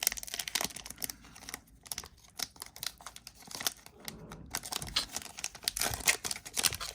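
Crinkling and rustling of a foil trading-card pack wrapper and cards being handled, in irregular short crackles and clicks.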